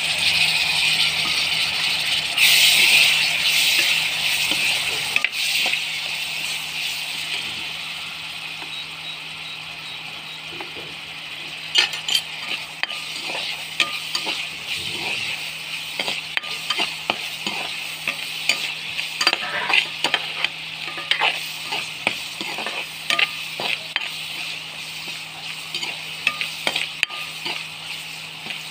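Chopped tomatoes sizzling in hot oil with fried onions and spices in a metal kadhai. The sizzle is loudest in the first few seconds and gradually dies down. From about twelve seconds in, a metal ladle clinks and scrapes against the pan again and again as the mixture is stirred, with the sizzle continuing underneath.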